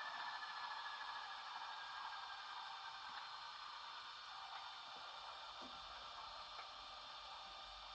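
Bachmann Class 37 model locomotive's DCC sound winding down after engine shut-down: a faint high whine sliding slowly downward and fading over a hiss, with a few light ticks.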